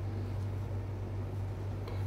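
A steady low hum with no change, under faint room noise.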